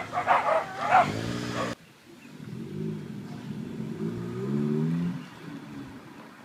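A dog barks several times in the first second or two over a car engine revving. After a sudden cut, Honda Civic engines rev up twice, rising in pitch, as the cars roll forward, then ease off near the end.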